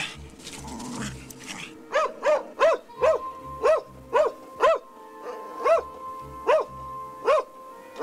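A poodle barking repeatedly, about ten short barks in quick succession starting about two seconds in, over held notes of background music.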